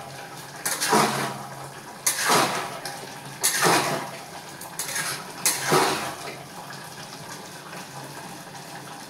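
Steel spoon scraping and knocking against the sides of an aluminium pressure cooker as a thick, wet potato-and-aubergine curry is stirred. There are about six strokes in the first six seconds, and the stirring is quieter after that.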